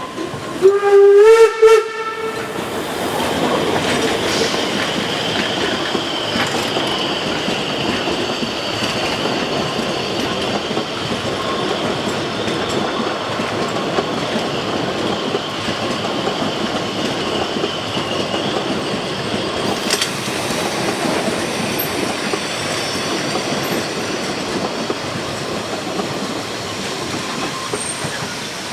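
Narrow-gauge steam locomotive gives a short, loud whistle blast about a second in, its pitch stepping up. Then the locomotive and its train of coaches roll past with a steady clatter and rumble of wheels on the rails.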